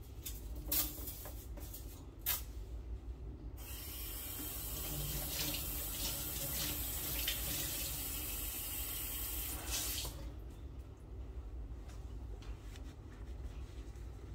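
Kitchen tap running into a stainless steel sink for about six seconds, starting a few seconds in, as a hand or sponge is rinsed under the stream. Before the water starts there are two sharp clicks.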